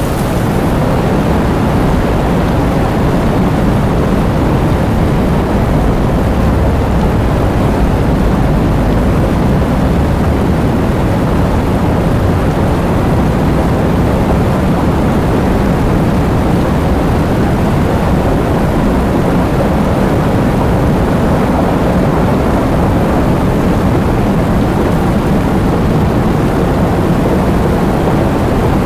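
Heavy rain pouring steadily: a dense, even rush of noise with a deep low rumble under it.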